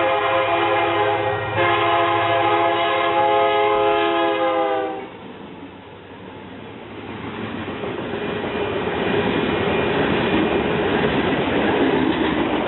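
Locomotive horn sounding a multi-note chord, broken once briefly and then held, its pitch sagging slightly just before it cuts off about five seconds in. Then the rolling noise of the train on the rails builds up and keeps going.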